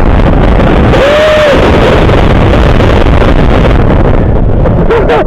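Loud wind rush over the microphone with the rumble of a Vekoma roller coaster train running fast along its steel track. A brief shout cuts through about a second in.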